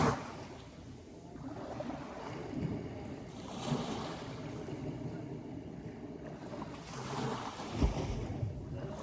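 Sea surf washing ashore in waves, swelling about every three and a half seconds, with a short low thump near the end.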